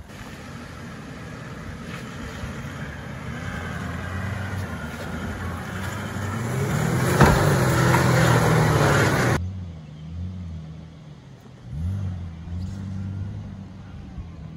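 Toyota LandCruiser 76 four-wheel drive's engine working hard as it climbs a rocky step, growing louder, with a sharp knock about seven seconds in. Then a Toyota LandCruiser 80's engine, quieter, revving up and easing off in short surges as it picks its way down a rutted track.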